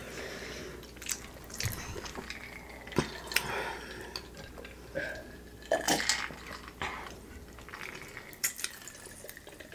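A lime wedge squeezed by hand over a fish taco: quiet wet squishes and drips of juice, with scattered small clicks and taps.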